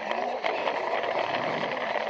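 Plarail toy train running on plastic track: its small battery motor and gears whirring steadily, with a fast run of faint wheel clicks.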